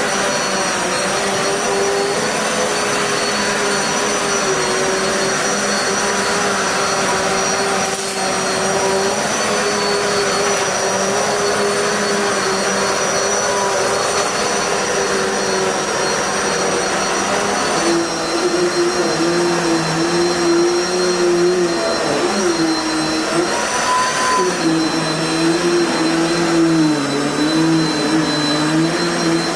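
Dirt Devil vacuum cleaner running: a steady motor whine over a rushing airflow roar. From about two-thirds of the way through, the motor note drops lower and wavers up and down in pitch.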